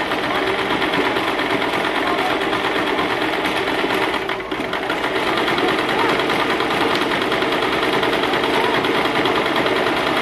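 Electric sewing machine running steadily at speed, stitching through woven cord, easing off briefly a little over four seconds in and then picking up again.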